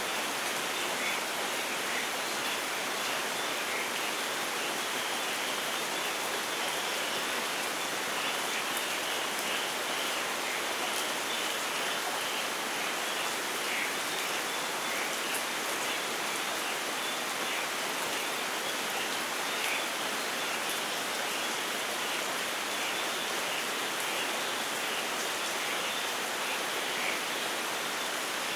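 Steady rainfall in a rainforest, an even hiss with no thunder.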